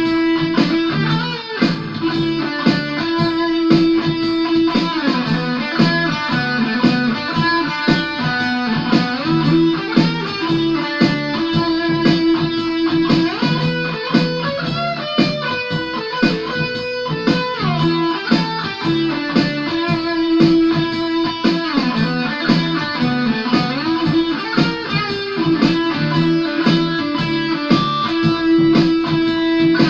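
Ibanez AS73 semi-hollow electric guitar played amplified in the key of E: a run of lead lines with many bent notes among repeated low held notes.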